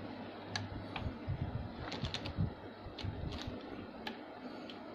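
Screwdriver and metal parts clicking and tapping inside a Singer 834 sewing machine as a part is worked loose and taken out: scattered small irregular ticks.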